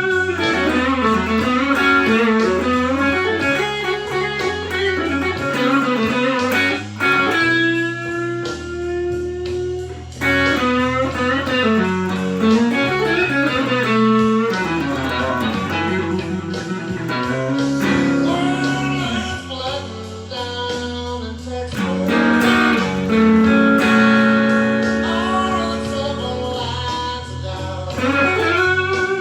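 Overdriven electric blues lead guitar playing slow-blues licks with string bends and held notes, a Stratocaster through a Tube Screamer TS9 into a Fender Blues Junior tube amp, over a backing track with bass and drums.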